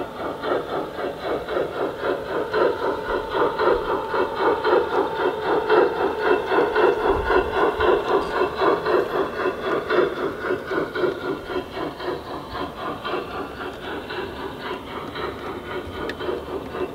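A large-scale LGB garden-railway model steam locomotive with its coaches and freight wagons running past on the track, with a steady rhythmic beat about four times a second that grows louder as the train goes by in the middle and fades toward the end.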